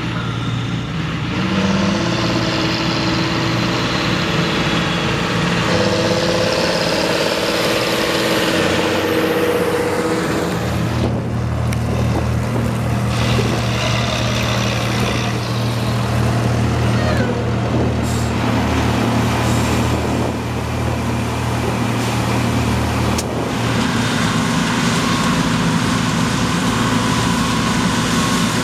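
Combine harvesters at work in wheat: diesel engines and threshing machinery running steadily. The engine note shifts about a second in, again around eleven seconds, and again near twenty-three seconds.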